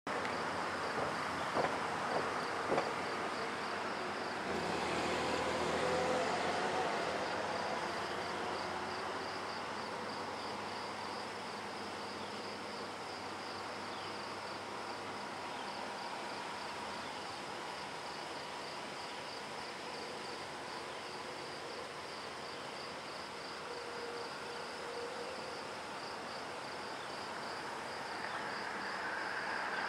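Insects trilling steadily, with the faint rumble of a distant CSX freight train of empty coal hoppers approaching and growing louder near the end. Three sharp clicks about two seconds in.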